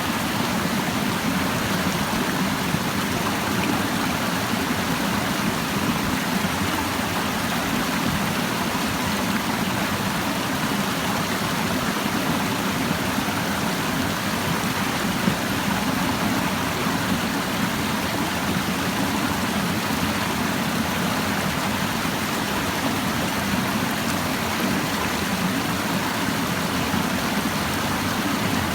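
Clear mountain stream babbling over rocks, a steady rush of flowing water.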